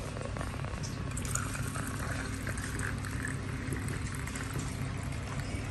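Clear grain liquor (baijiu) poured from a glass bottle in a thin stream into plastic cups, filling them one after another, over a steady low background hum.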